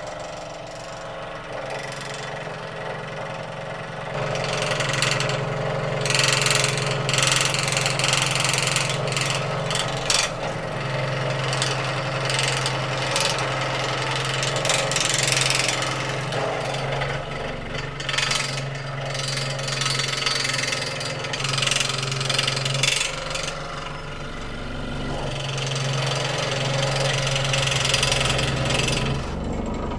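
Electric scroll saw running, its fine reciprocating blade cutting a small block of wood: a steady motor hum under a rasping cutting noise that swells and eases as the wood is fed through.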